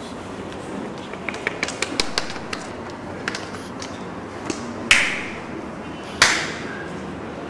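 A run of light taps, then two loud, sharp smacks about a second and a half apart, each fading out over about half a second.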